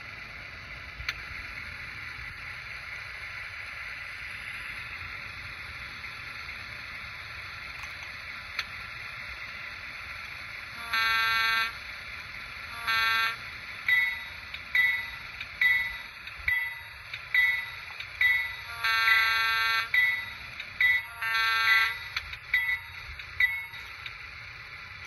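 Sound system of a Con-Cor Aerotrain model locomotive played through its small speaker: a steady diesel idle, then air-horn blasts from about halfway through (a long one, a short one, and two long ones later), with a bell ringing about every 0.7 s over the second half.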